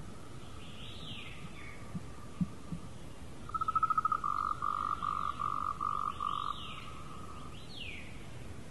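Animal calls in a nature soundscape. A steady high call runs throughout; in the middle it becomes a loud run of pulsed notes, a fast rattle and then about six longer notes at about three a second. Several whistled calls fall in pitch, about a second in and again near the end.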